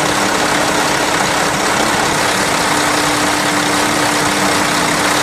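2006 Mack CT713 Granite's 427 hp diesel engine idling steadily, heard close up in the open engine bay, with a steady hum running through it.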